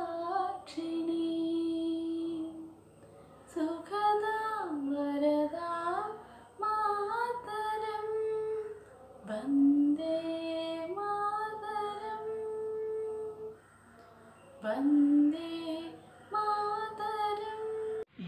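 A girl singing unaccompanied, holding long notes that slide between pitches, in phrases broken by short pauses.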